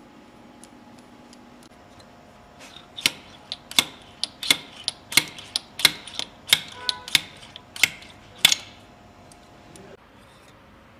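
A series of about fifteen sharp metallic clicks, roughly two a second, from a hand tool working in the intake ports of a Volkswagen EA888 cylinder head during carbon deposit cleaning.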